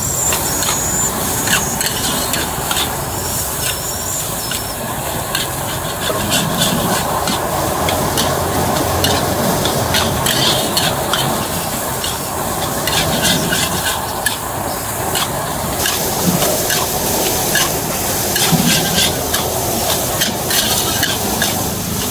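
Fried rice sizzling in a hot wok while a metal spatula stirs and tosses it, scraping and clanking against the wok many times.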